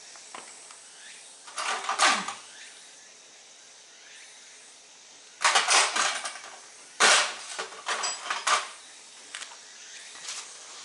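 Several short bursts of clatter and rustling as parts are handled by hand: once about two seconds in, then a cluster from about five and a half to eight and a half seconds in.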